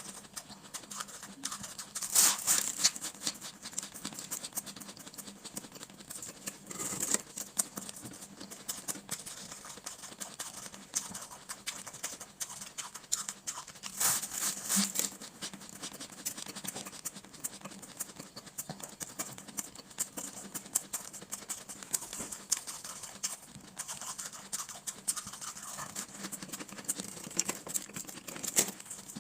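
Close-up crunching and chewing of shaved ice: a dense run of crackling crunches, with louder bites about 2, 7 and 14 seconds in.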